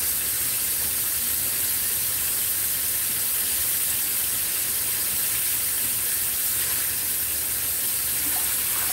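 Pork chops frying in oil in a deep pan, a steady sizzling hiss.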